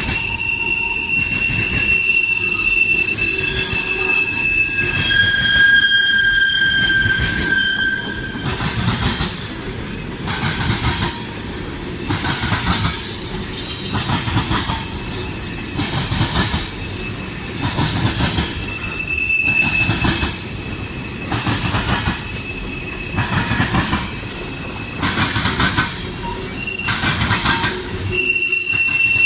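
Canadian Pacific freight train rolling past. Its wheels squeal in high steady tones for the first several seconds, then the sound surges and falls about every one and a half to two seconds as the cars go by.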